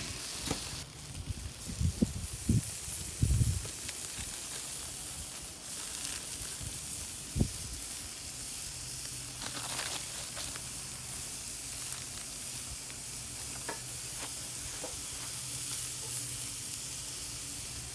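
Raw burger patties sizzling as they are laid on a hot cast-iron charcoal grill grate, with onions frying in a cast-iron skillet beside them: a steady high sizzle, with a few soft knocks in the first few seconds and a sharp click about halfway.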